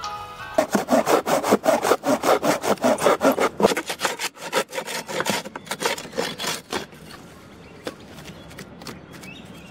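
Curved hand pruning saw cutting through a hollow gum tree branch with quick back-and-forth strokes, about three a second, stopping about seven seconds in.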